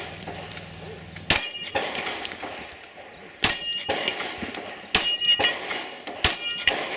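Four pistol shots, roughly a second and a half apart, each followed by the ringing of a struck steel target.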